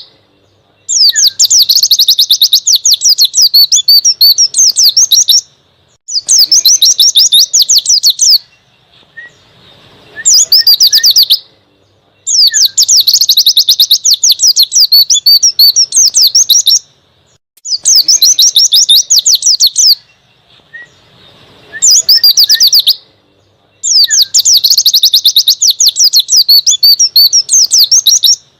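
Pleci (white-eye) singing a loud, rapid, high twittering song, wild forest-style, in about seven bursts of one to five seconds each, separated by short pauses.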